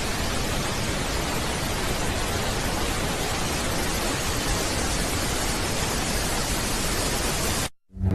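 Loud, steady static hiss that cuts off suddenly near the end. Just before the end a loud, low-pitched sound begins.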